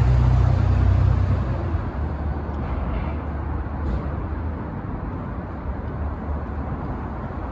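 Elevated subway train rumbling along the steel structure as it pulls away, the sound slowly fading over several seconds.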